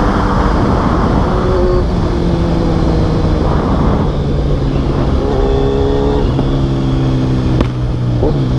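Kawasaki Z1000 inline-four running through a full aftermarket exhaust system while being ridden at a fairly steady pace, its engine note easing down and then slowly climbing. A brief click sounds near the end.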